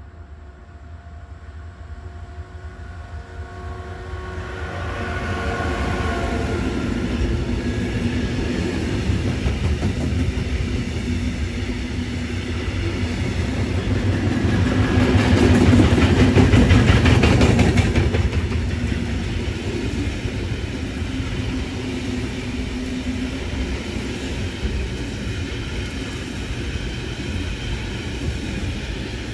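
DB Cargo Class 193 Siemens Vectron electric locomotive approaching with a long intermodal freight train of trailers on pocket wagons. A rising rumble carries a few steady whining tones as the locomotive nears, then the steady rolling rumble of the wagons passing, loudest around the middle.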